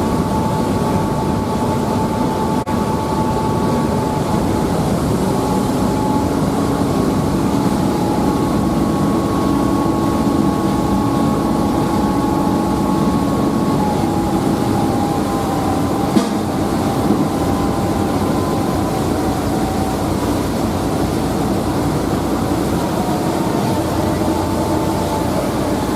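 Passenger ferry's engines running steadily under way: a loud, even drone with a few faint whining tones.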